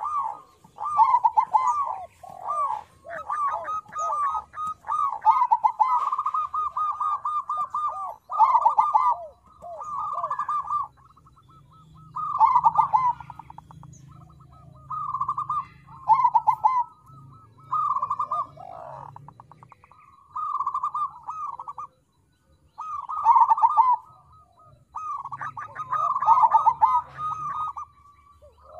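Perkutut crossing (zebra dove) cooing: short phrases of quick, rattling coos, repeated over and over with brief pauses between them.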